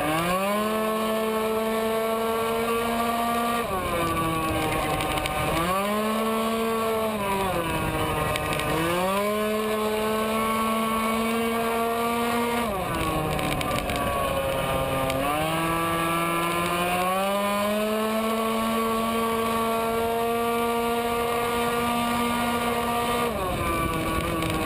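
Tuned two-stroke racing scooter engine at full throttle, heard onboard: the revs shoot up and hold at one high, steady pitch as the automatic belt transmission keeps the engine at peak revs, then drop four times as the rider lets off for corners and climb straight back. Wind and road noise run underneath.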